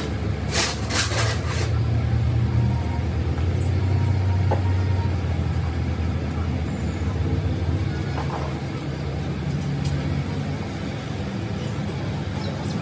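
A motor running steadily with a low rumble, with a few sharp knocks between about half a second and a second and a half in.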